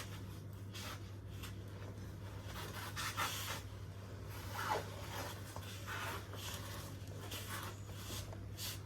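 Faint, scattered rubbing and scraping sounds over a steady low hum.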